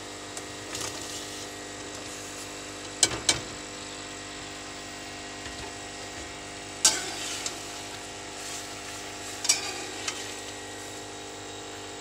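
Steel utensils clinking and scraping against a steel kadhai as mango pieces are tipped from a strainer into sugar syrup and stirred with a metal spatula: a quick pair of sharp clinks about three seconds in, another clatter about seven seconds in, and more around nine and a half seconds, over a steady background hum.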